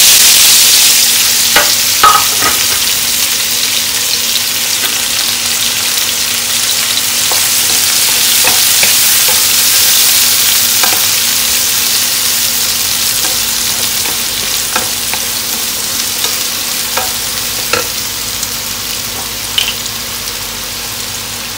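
Sliced shallots sizzling loudly in hot coconut oil in a nonstick pan, the sizzle slowly easing, with occasional taps of a wooden spatula as they are stirred.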